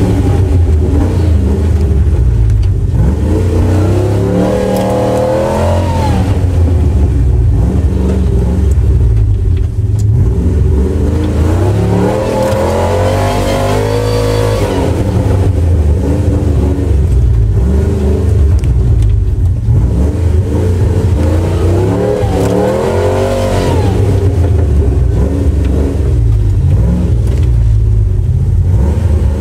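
Truck engines revving hard under load in repeated surges, heard from inside a cab: the pitch climbs over a few seconds, then falls back, about four times, over a steady low rumble, as a pickup stuck in deep mud is pulled with a tow strap while its own wheels spin.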